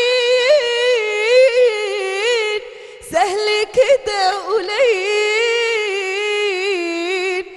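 A young woman singing Islamic devotional inshad solo into a microphone: two long, melismatic phrases with wavering ornaments on held notes, with a short breath about two and a half seconds in.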